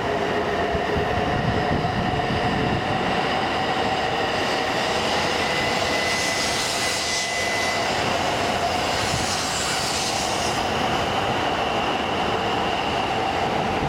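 JR East E2 series 1000 Shinkansen, coupled to an E3 series 2000, departing along the platform. It makes a steady whine over the running noise of its wheels on the rails.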